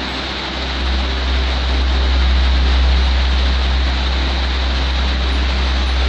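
Waterfall and the rocky stream below it rushing: a steady, even water noise with a strong deep rumble.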